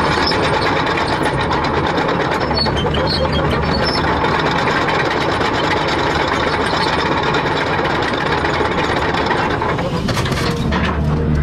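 Excavator engine running steadily under a dense mechanical din, with many small clanks and rattles; the engine hum grows stronger near the end.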